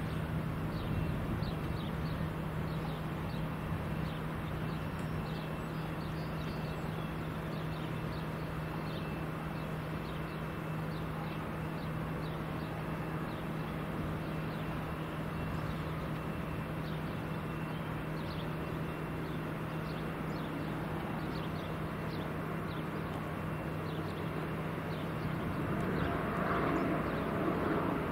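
Airport ambience: a steady low engine hum, with small birds chirping over it again and again. In the last few seconds the noise of a jet airliner swells as it approaches.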